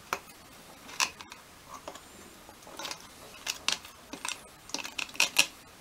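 Flat-blade screwdriver scraping and clicking against the metal of an OMC Cobra lower unit's gearcase as it pries at the water passage plate, which is stuck down with a silicone-like compound. Irregular short scrapes and clicks, coming quicker near the end.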